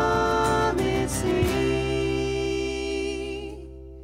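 Acoustic band music: strummed acoustic guitars with wavering held notes, then a chord left to ring that fades away over the last two seconds.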